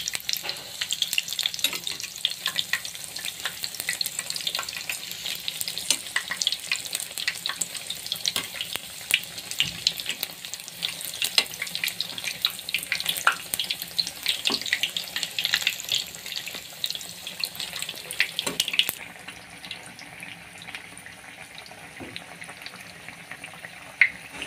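Batter-coated raw banana slices (bajji) deep-frying in hot oil: a steady sizzle full of quick crackling pops, turning quieter and duller about three-quarters of the way through.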